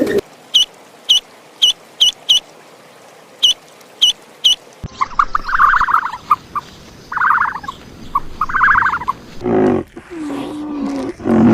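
A string of different animal calls, one clip after another. First come about nine short, high chirps. Next come several buzzy, rapidly pulsed calls, each lasting about a second. Lower, louder calls start near the end.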